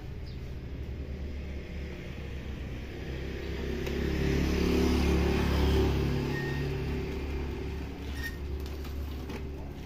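A motor vehicle's engine rumble swells to its loudest about halfway through, then fades, as it passes on the road, over a steady low background rumble.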